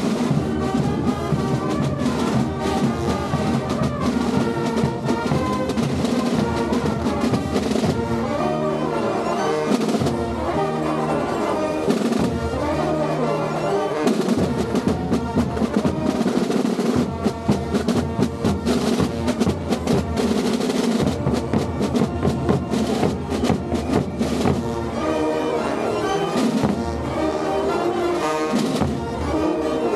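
Carnival brass band with a sousaphone and drums playing a Gilles tune, the drums keeping a steady beat under the brass.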